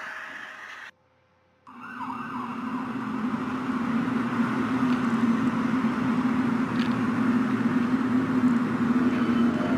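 A steady low droning hum that swells slowly and then holds, the kind of unexplained 'strange sound' people record from the sky. Just before it, a fading tone cuts off into about a second of silence.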